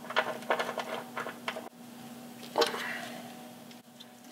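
Light metallic clicks and taps of a brake-line mounting bracket, its bolt and the line's hardware being handled and fitted by hand, several quick ones in the first second and a half, then a single tap a little after the middle.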